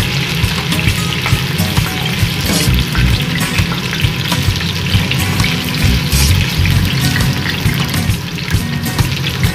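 Potato chunks and bay leaves sizzling and crackling in hot oil in a stainless steel pot, with a wooden spatula scraping and knocking against the pot as they are stirred.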